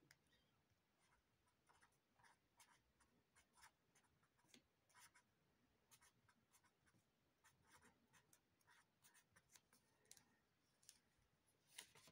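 Felt-tip pen writing on a paper card: a run of short, faint, scratchy strokes as letters are drawn. Near the end a louder rustle as the card is lifted.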